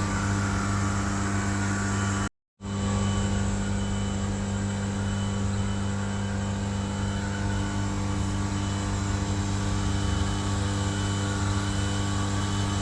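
Laser engraver running steadily through a long engraving job, a constant machine hum. It drops out to silence for a moment a little over two seconds in, then carries on unchanged.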